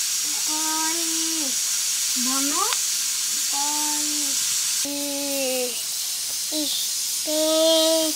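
A small child's sing-song voice: several short held notes and one quick upward glide, over a steady high hiss.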